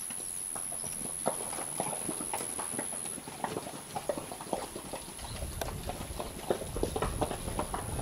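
Hooves of walking livestock knocking on the ground, many short irregular knocks, with a low rumble joining about five seconds in.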